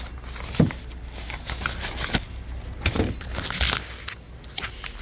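Handling noises as things are packed into a bag: rustling and scattered knocks, with one sharper thump about half a second in and another about three seconds in.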